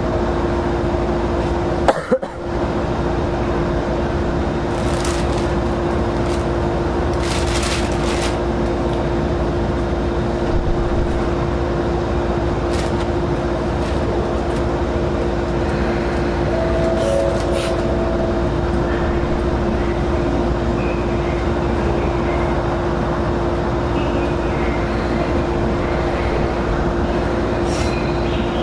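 Steady hum inside the cabin of a Senboku 7020 series electric train standing at a station waiting to depart, with no traction motor sound. A brief sudden break in the sound comes about two seconds in.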